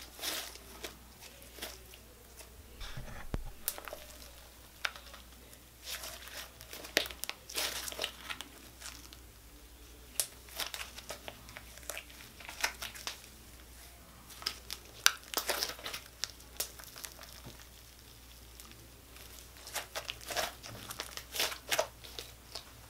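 Clear-glue glow-in-the-dark slime being stretched, folded and squeezed by hand, crackling and popping with sharp clicks in spells of a second or two, with quieter pauses between.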